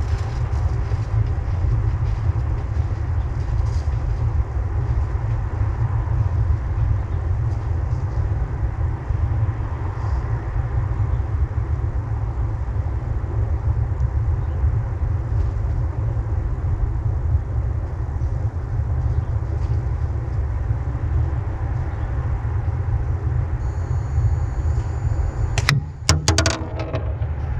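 Steady low rumble of wind buffeting the microphone, with a quick cluster of sharp snaps near the end: a slingshot shooting a quarter-inch steel ball, the crack of the release and the ball's splat-like pop on a squishy glue owl.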